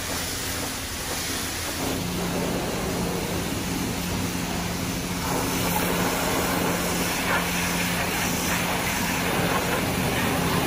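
Self-serve car wash pressure-washer wand spraying water onto a truck in a steady hiss. A low hum comes in about two seconds in, and the spray gets louder about five seconds in.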